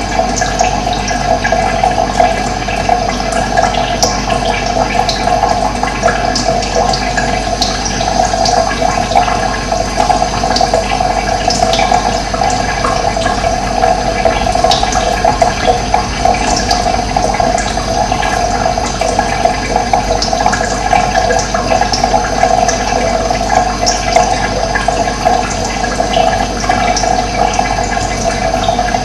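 Running water rushing steadily, with short, high bird chirps scattered over it.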